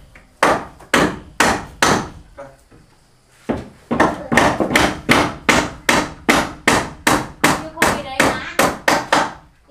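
Hammer driving nails into wooden boards: four blows, a pause of about a second and a half, then a steady run of about three blows a second.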